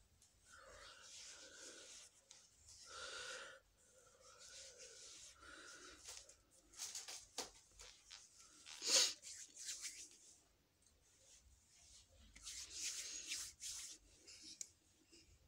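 Hands rubbing and patting over the face and neck close to the phone's microphone, with breathing; one louder, short rush of noise about nine seconds in.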